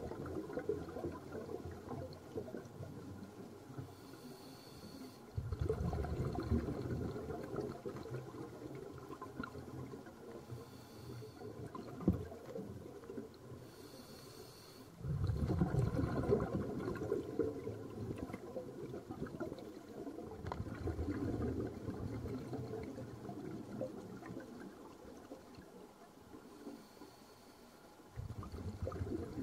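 Scuba diver breathing through a regulator underwater: a faint hiss on each inhalation, then a bubbling rush of exhaled air that fades over several seconds, repeating about every ten seconds over a steady underwater crackle.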